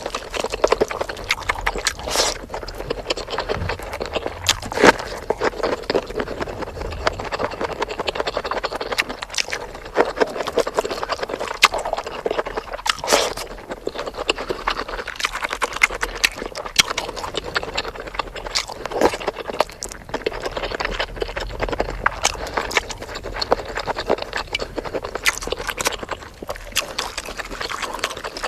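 Close-up sound of a person chewing spicy chicken: a steady stream of sharp clicks and wet mouth smacks, the typical eating sounds of a mukbang.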